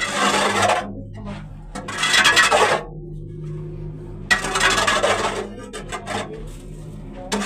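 Flat-bladed scraper on a wooden handle rasping dirt off a tank's plastered walls in long scraping strokes, about one every two seconds, with lighter scrapes between.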